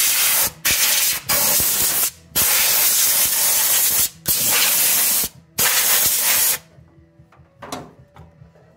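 Compressed-air blow gun hissing in about six loud blasts with short breaks between them, blowing dirt and debris out from around the spark plugs in a flathead six-cylinder head before the plugs come out. The air stops a little over two-thirds of the way through.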